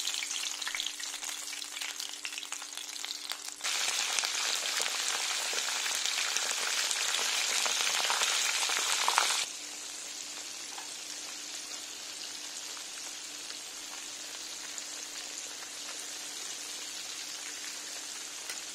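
Meat-stuffed green peppers frying in hot oil: a steady crackling sizzle. It grows louder about four seconds in, then drops abruptly to a softer, even sizzle about halfway through.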